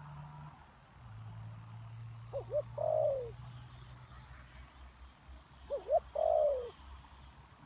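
Spotted dove cooing twice, each call two short notes followed by a longer note that falls in pitch. A low steady hum runs underneath.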